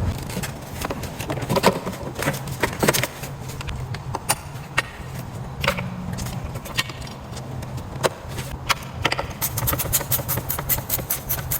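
Clicks and metallic knocks of a truck battery being set back in and its fittings handled, with a quick run of sharp, evenly spaced clicks near the end as something is tightened. A steady low hum runs underneath.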